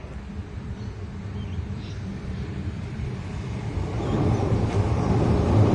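Low rumble of an approaching Adelaide Metro A-City 4000 class electric train, growing louder over the last couple of seconds.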